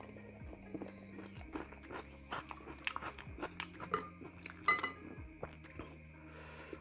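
Close, crisp crunching and chewing of fried duck rice topped with crispy crackers, with a metal fork scraping and clinking against a glass bowl. A dense cluster of sharp crunches and clinks comes about two thirds of the way in. Faint background music plays underneath.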